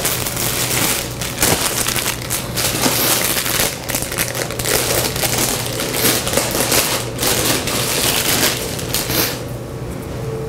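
Plastic bread bag crinkling and rustling as it is handled and opened, with many sharp crackles. The rustling stops near the end.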